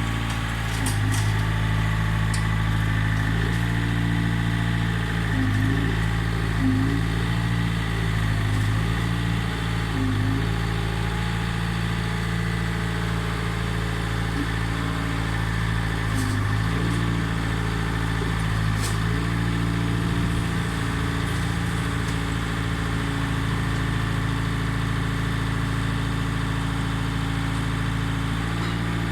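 Excavator's diesel engine running steadily. Its note dips and recovers several times in the first half and again about halfway through, as if under hydraulic load, with a few faint clicks.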